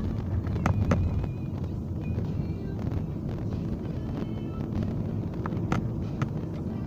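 Road noise inside a moving car's cabin: a steady low rumble of tyres and engine, with a few sharp knocks and rattles from the rough, half-repaired road surface, and music from the car stereo faintly under it.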